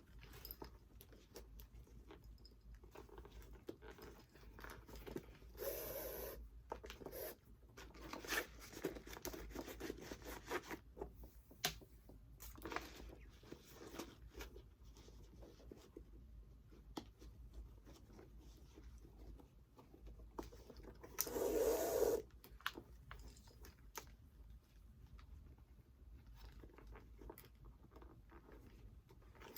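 Faint rustling, scraping and small clicks of hands lacing a new Air Jordan 1 sneaker, drawing the laces through the eyelets. A louder rustle comes about 6 s in and again about 22 s in.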